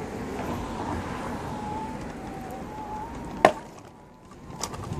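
Dolphin One D5 electric unicycle riding over pavement: steady rolling noise with a faint, slightly wavering whine, and one sharp knock about three and a half seconds in.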